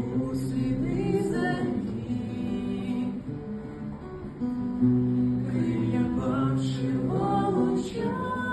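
Acoustic guitar strummed, with a voice singing along.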